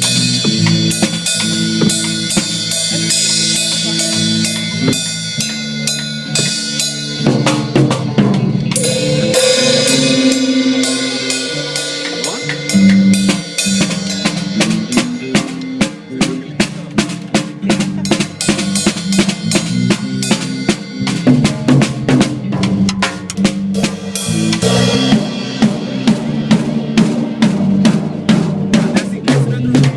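Music driven by a drum kit playing busy beats, snare and bass drum hits in quick succession, over a moving bass line.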